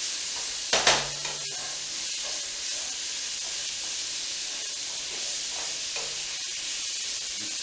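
Chicken strips sizzling as they brown in a hot non-stick frying pan, stirred with a wooden spatula, with a steady high hiss throughout. A single louder knock about a second in.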